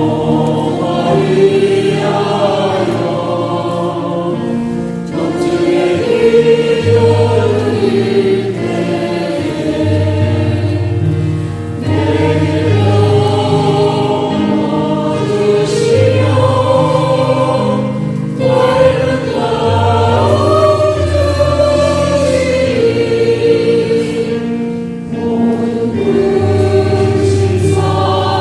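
Choir singing a Catholic hymn in phrases a few seconds long, with sustained low bass notes beneath.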